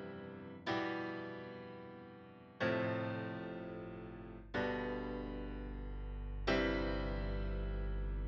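Background music: slow keyboard chords with a piano-like tone, struck four times about two seconds apart, each left to ring and fade. A low bass tone swells up under them in the second half.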